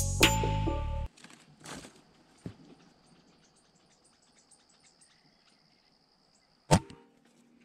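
Music that cuts off about a second in, then faint outdoor quiet with a steady high tone. Near the end comes a single sharp crack: one shot from a PCP air rifle fired at a perched dove.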